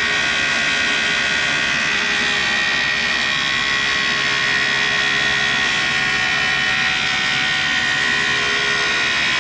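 Vintage Cincinnati tool and cutter grinder spinning a 6-inch diamond parting wheel at about 4500 rpm as it cuts through thick carbide: a steady high whine over a constant hiss.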